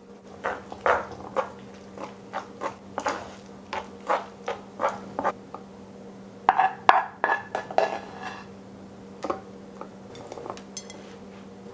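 Dishes and utensils clinking and knocking in a kitchen: a quick run of irregular taps, with a few ringing clinks of crockery or glass in the middle.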